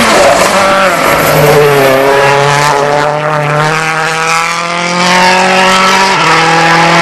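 Rally car engine at high revs. The pitch falls about a second in, then climbs slowly and steadily under acceleration for several seconds, and steps down near the end.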